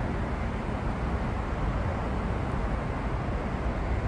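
Steady low outdoor background rumble, even throughout, with no distinct events.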